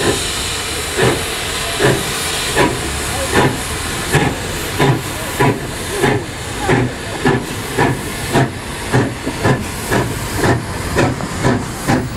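LNWR Webb coal tank 0-6-2T steam locomotive No. 1054, a two-cylinder engine, pulling away under steam: a steady hiss with sharp exhaust chuffs about every three-quarters of a second at first, quickening to about two a second near the end as it gathers speed.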